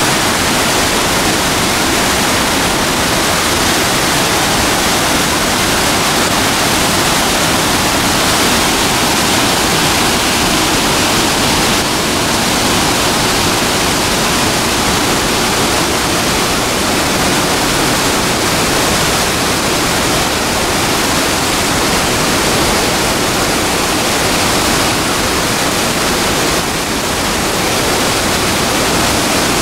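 Loud, steady rushing roar of a large waterfall, an unbroken wash of falling-water noise with no distinct events.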